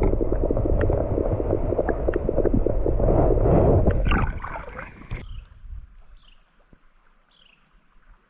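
Creek water sloshing and gurgling right at the microphone as a rainbow trout is let go by hand into the water. The sloshing stops abruptly about five seconds in, leaving a quiet background with a few faint, high, falling chirps.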